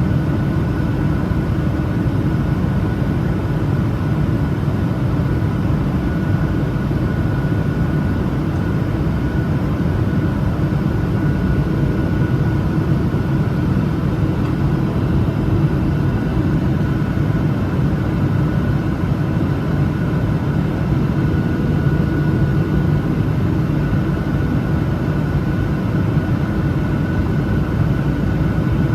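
Steady cabin noise of a Boeing 737-900ER in flight: the drone of its CFM56-7B turbofan engines and rushing air, with a faint steady whine above it.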